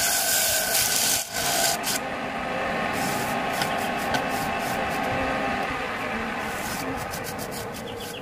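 Inside of a wooden bowl being hand-sanded as it spins on a running wood lathe: a steady scratchy hiss, loudest for the first two seconds and lighter after that, with scattered light ticks.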